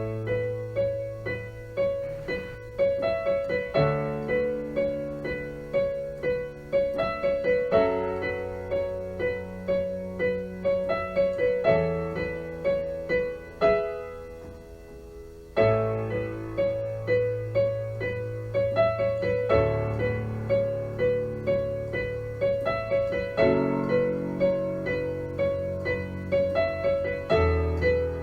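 Electric piano playing a slow, gentle instrumental introduction: repeated notes over held bass chords, fading briefly about halfway through before the playing resumes.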